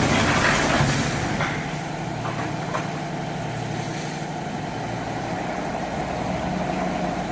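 A CNC welded wire mesh machine for 2–4 mm wire running: a steady mechanical hum and hiss, busier in the first second, with a few faint clicks a couple of seconds in.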